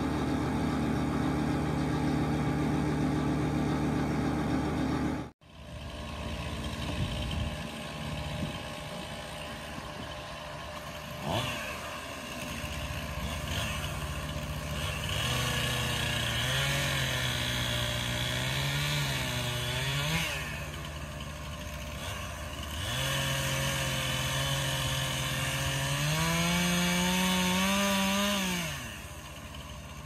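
A wood chipper's engine runs steadily for the first few seconds and stops abruptly. After it comes a two-stroke chainsaw bucking logs, its engine note wavering and sagging under load, then revving up high and dropping back about a second before the end.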